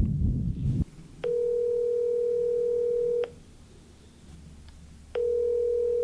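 Ringback tone of an outgoing phone call: a steady tone, about two seconds on and two seconds off, heard twice. Before it, wind on the microphone cuts off under a second in.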